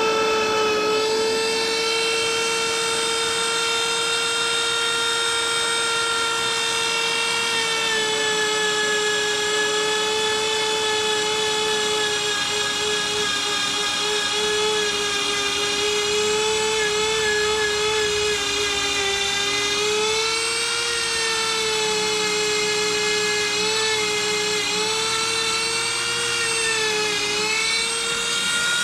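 Dremel rotary tool whining steadily at high speed as its small wheel lightly works the rust off a corroded iron carbine receiver. The pitch sags and wavers in the second half as the wheel meets the metal.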